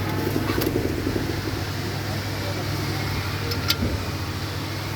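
Steady low machine hum in a workshop, with a few sharp metallic clicks and light clatter from brake parts and tools being handled.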